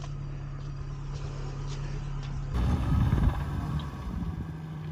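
Warmed-up motor tricycle engine idling steadily. About two and a half seconds in, a louder low rumble rises for about a second, then the idle carries on.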